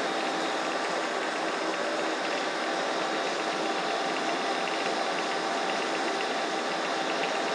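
Monarch metal lathe running with no cutting load, its spindle and gearing giving a steady, even mechanical hum with a faint whine.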